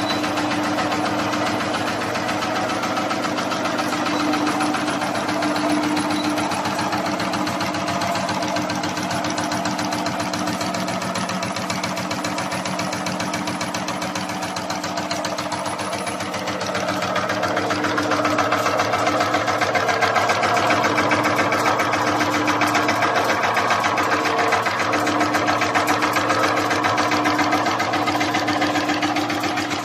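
Wire nail-making machine running: a fast, even mechanical clatter of its stamping strokes, getting a little louder about halfway through.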